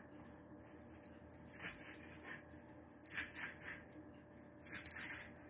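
Faint rustling of fresh parsley being handled and picked apart by hand over a cutting board: a few soft, short crackles over a low steady hum.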